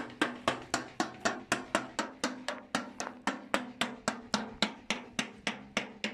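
Rapid, even knocking, about four to five strikes a second, beaten to make a flying honeybee swarm settle.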